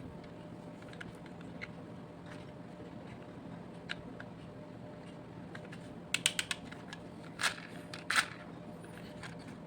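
Light clicks and taps of small toy vehicles being handled, scattered at first, then a quick run of clicks about six seconds in and two louder clacks near the end, over a steady faint hum.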